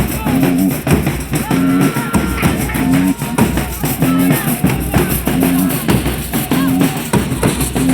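Folia de reis music: drums keep a steady beat under string instruments, with a short low figure repeating about every two-thirds of a second.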